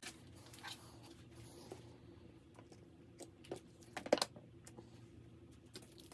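Small clicks and taps of craft supplies being handled on a work surface, scattered and irregular, with a louder cluster about four seconds in, over a faint steady hum.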